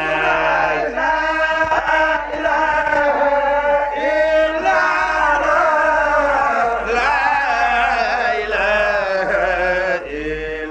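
Arabic devotional poem chanted in long, wavering melodic lines that glide up and down in pitch, with a short pause near the end.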